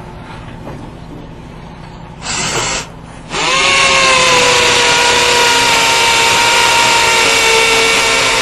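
A power tool runs in a short burst, then starts up for good and runs loudly with a steady whine.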